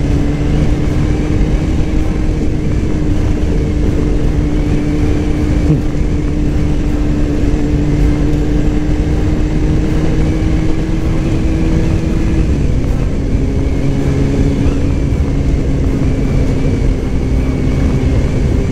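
Sport motorcycle engine running at a steady cruise, its note rising slowly and then stepping down to a lower pitch about twelve seconds in, under heavy wind rush on the microphone.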